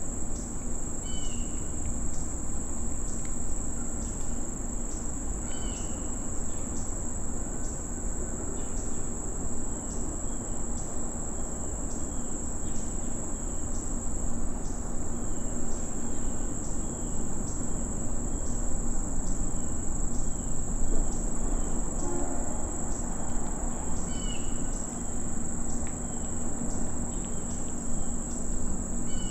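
Steady high-pitched chorus of crickets and other night insects in late-summer woods, with short chirps recurring every second or two.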